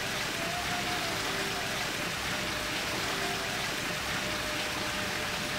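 Steady, even background hiss with no clear events, and a few faint held tones now and then.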